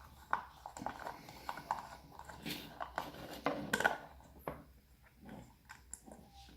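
Scattered light clicks and taps of the small plastic disco light and its parts being handled and opened up, irregular and of uneven strength.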